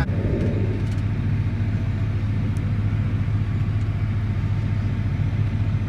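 Tractor engine running at a steady speed, a constant low drone.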